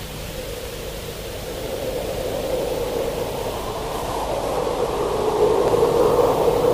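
Lo-fi black metal rehearsal tape: a hissing, noisy drone with a faint steady tone in it, slowly growing louder.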